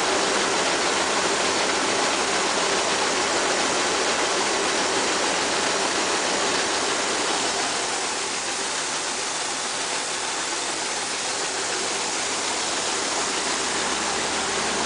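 Wheat pouring out of a raised grain-truck box, a steady rushing hiss like running water.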